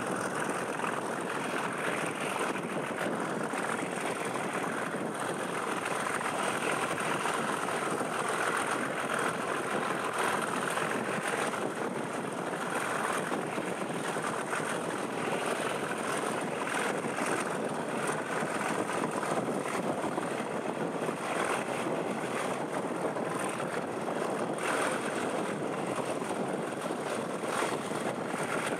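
Steady running noise of a diesel-hauled passenger train heard from an open carriage window: wheels on the rails and rushing air, holding an even level throughout.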